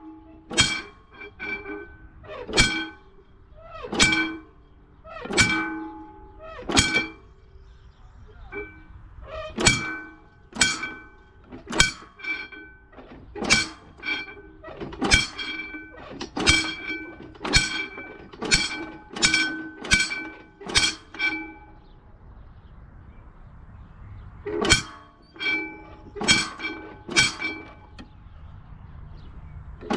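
Warning bell of an old cable-operated mechanical railway crossing gate, struck over and over with a ringing clang as the barriers are lowered: more than a second between strikes at first, then about two a second, with a short pause near the end.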